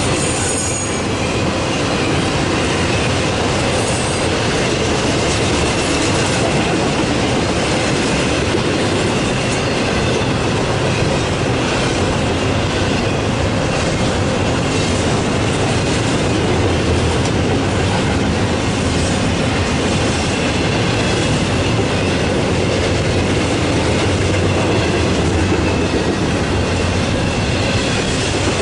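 Freight train rolling steadily past, the cars' wheels clacking over the rail joints, with a faint high wheel squeal.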